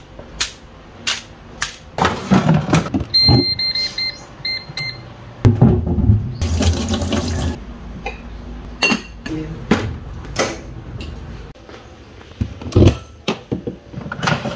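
Kitchen food prep: water from a tap running into a stainless steel sink and sweet potatoes being washed by hand in a pot of water, among knocks of plastic containers and pots. A short run of electronic beeps sounds about three to five seconds in.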